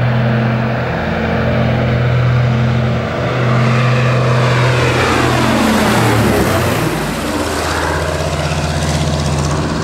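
Consolidated PBY-5A Catalina flying low overhead, its two Pratt & Whitney R-1830 Twin Wasp radial engines droning steadily. The pitch drops as it passes, about six seconds in.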